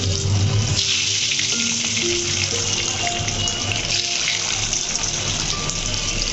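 Hard-boiled eggs frying in hot oil in a wok (karai), a steady sizzle as they are added one by one, with background music playing.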